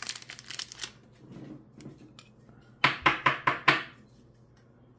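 Foil booster-pack wrapper crinkling in the hands for about the first second, then quieter handling. About three seconds in comes a quick run of four or five rasping scrapes as trading cards are handled.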